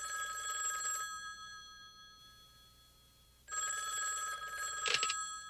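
Old-style telephone bell ringing twice: the first ring stops about a second in and fades away, and after a pause a second ring starts a little past halfway. A sharp clack comes near the end.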